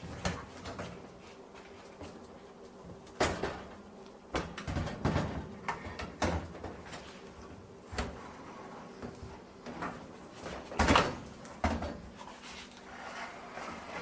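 Scattered knocks, taps and short clatters of hardware and parts being handled, with the loudest knocks about three seconds in and near eleven seconds.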